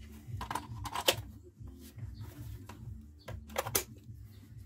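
Hard plastic clicks and knocks of a 20 V lithium-ion battery pack being handled and slid onto a cordless angle grinder, with the sharpest click about a second in and two more clicks close together near the end.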